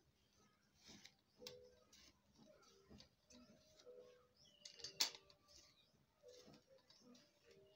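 Near silence with faint soft clicks and taps as a tomato is cut by hand on a knife blade and the pieces drop into a steel bowl of chopped onion. One sharper click comes about five seconds in.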